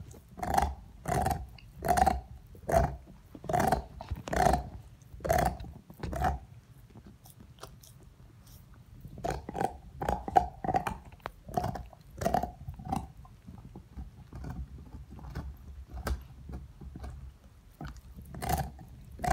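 A dog gnawing on a large bone, its teeth crunching and scraping against it in runs of bites about one or two a second. The bites thin out midway, pick up again, then come only now and then, with one more near the end.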